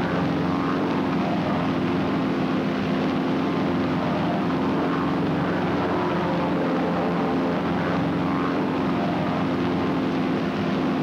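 Propeller drone of North American SNJ trainers, their nine-cylinder radial engines running steadily at cruise power with an even, unbroken hum.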